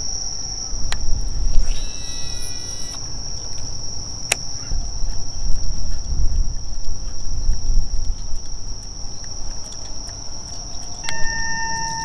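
Insects chirring steadily in one high, unbroken tone over a low rumble. About eleven seconds in, a steady siren tone starts up.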